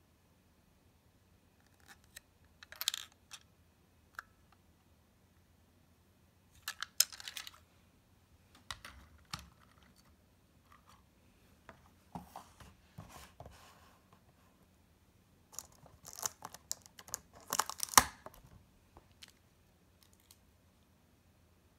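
Plastic Plarail toy train cars being handled: scattered clicks, taps and rattles as the cars are pushed together and set down, in short clusters with the loudest clatter near the end.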